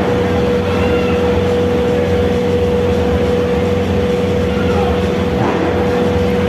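Live wrestling-ring ambience: a steady low drone with a constant hum running through it, faint shouts from the crowd, and a dull thump from the ring about five seconds in.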